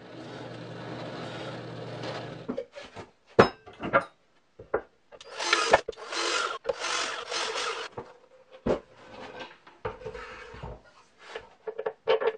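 Workshop tool work in sequence: a drill press running with a Forstner bit boring into a wooden board for about two and a half seconds, then a few knocks, then a cordless drill run in several short bursts into plywood, followed by scattered knocks of parts being handled and fitted.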